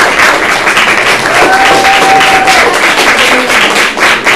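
Audience applauding, a dense patter of many hands clapping, with a single steady held tone for just over a second in the middle.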